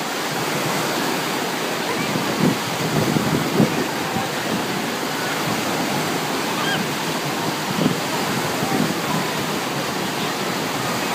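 Wave pool surf: a steady rush of breaking water, with faint distant voices of swimmers scattered through it and a few short louder moments about a quarter of the way in and again near three quarters.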